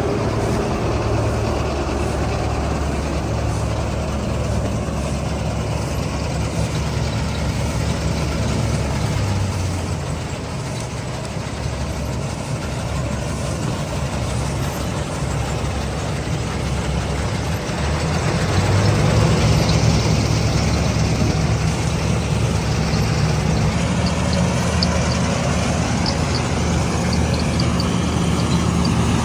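Combine harvester's diesel engine running steadily under working load, growing louder in the last third.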